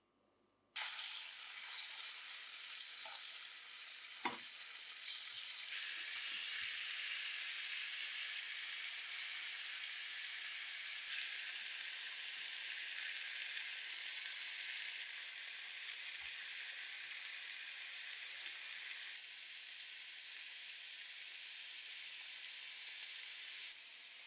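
Chicken thigh pieces sizzling in a hot frying pan, a steady hiss that starts about a second in; later sliced onion and grated carrot fry alongside them. A single short knock sounds about four seconds in.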